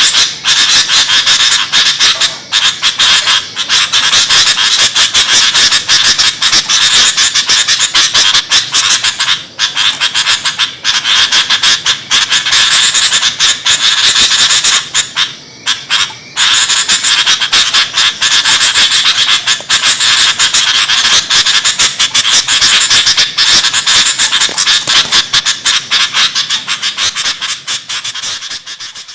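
Sooty-headed bulbuls (kutilang) chattering and calling noisily in a dense, unbroken stream of quick, high notes, fading out near the end.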